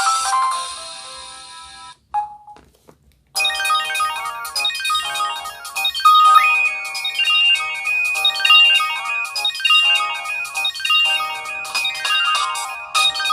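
Samsung Gravity 2 (SGH-T469) phone playing its built-in ringtones through its speaker: one electronic melody fades out over the first two seconds, a short beep sounds, and after a brief silence another ringtone, a melody of quick synthesized notes, starts about three and a half seconds in.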